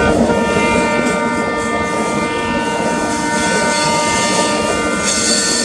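Passenger train running at speed through a curve, heard from one of its coaches: steady rail and wheel noise under a long, steady high-pitched tone of several notes that sets in just after the start and fades out toward the end.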